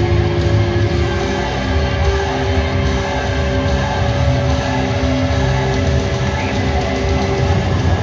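Heavy rock music with guitar playing loudly over an ice hockey arena's public-address system.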